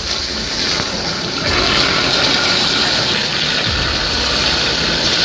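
A steady, loud rushing hiss, with a few low thuds about two seconds apart.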